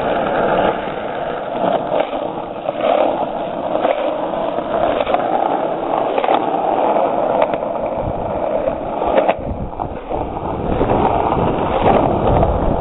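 Wheels rolling on asphalt with wind on the microphone: a steady rushing noise with scattered clicks and knocks, and a low rumble that builds near the end.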